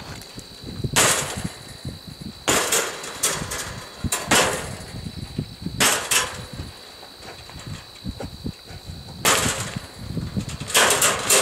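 Large rocks hitting a tensioned retractable greenhouse roof covering, thrown to simulate hail: a dozen or so sharp impacts at irregular intervals, several in quick succession, with a lull in the middle.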